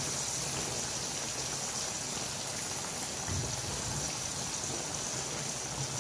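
Prawn curry simmering in a pan on the stove: a steady sizzling hiss.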